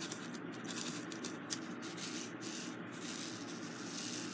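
Resin diamond-painting drills rustling and scraping in a plastic tray as it is moved and shaken, a run of short irregular scrapes.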